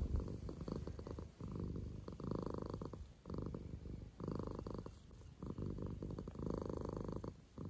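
Domestic cat purring close to the microphone: a steady rumble that swells and eases with each breath in and out, about once a second.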